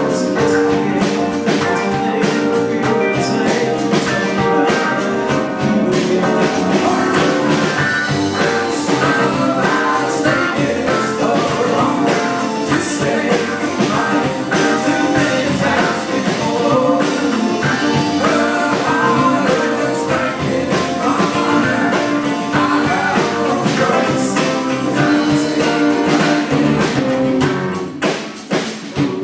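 A live rock band playing a blues-rock number at a sound check: guitar and drum kit with singing, dropping away near the end.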